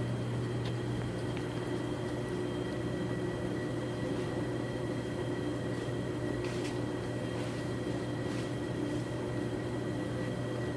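Steady low mechanical hum with a faint high-pitched whine over it, unchanging throughout.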